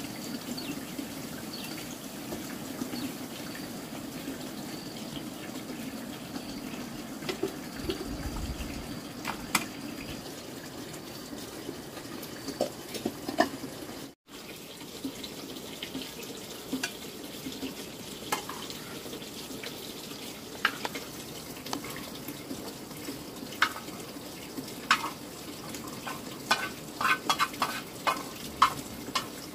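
Water running steadily from a tap, with scattered clinks and knocks that grow busier near the end.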